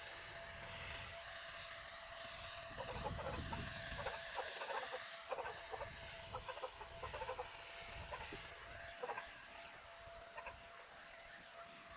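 Hens clucking in a series of short calls between about three and nine seconds in, over the steady hum and hiss of an electric paint spray gun running.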